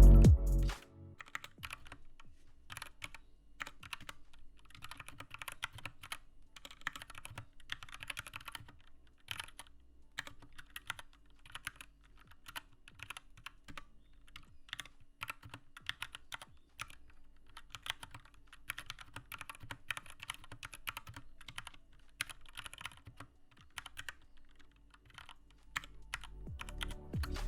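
Typing on an Anne Pro 2 mechanical keyboard: a continuous, irregular run of key clicks and clacks. Music fades out about a second in and returns near the end.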